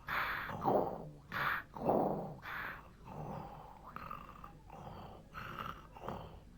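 Snoring, a cartoon voice effect: a string of snores about every half second, each falling in pitch, louder in the first half and softer later.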